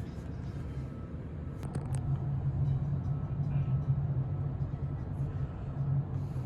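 Steady low hum of a ferry's machinery inside the ship, which grows a little louder about two seconds in, with a few quick clicks just before.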